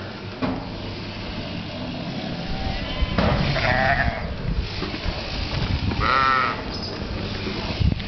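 Freshly shorn black-faced sheep bleating twice, a call about three and a half seconds in and a wavering one about six seconds in.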